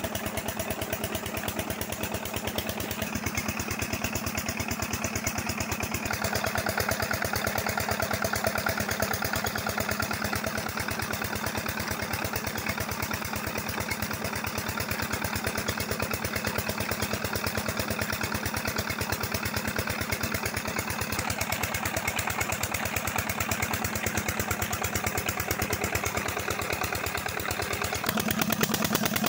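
Petter 12 hp diesel engine running steadily with a rapid, even beat, driving a tube-well water pump by a flat belt.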